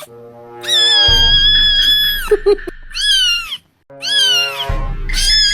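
Cat meme sound clip: a cat's long, drawn-out, high-pitched meow, then three shorter meows that rise and fall, over music with a bass line.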